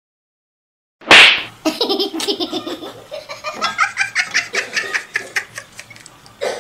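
A sudden loud burst of noise about a second in, then rapid high-pitched laughter in quick rhythmic bursts.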